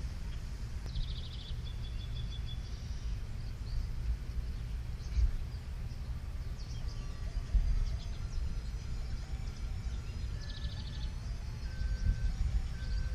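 Outdoor backyard ambience: a steady low rumble of wind on the microphone, with birds chirping. A rapid high trill comes about a second in and again near the end, and there are a few brief dull bumps in between.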